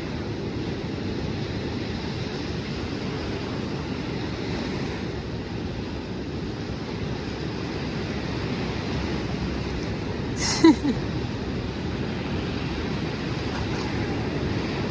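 Steady rush of surf with wind buffeting the microphone. A brief high cry from a voice breaks through about ten and a half seconds in.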